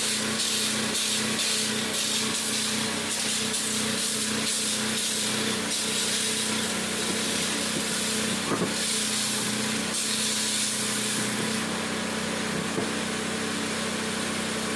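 Steady hissing noise over a constant low engine hum.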